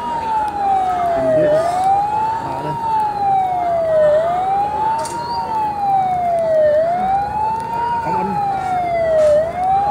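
Siren wailing, sliding down and back up in pitch about every two and a half seconds.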